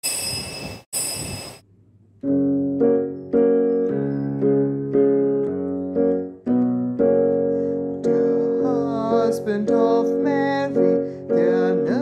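Electric keyboard playing a slow chordal introduction to a hymn to Saint Joseph, the chords changing about every half second. It opens with two short bright ringing bursts, then a brief pause before the keyboard comes in about two seconds in. A higher melody line joins near the middle.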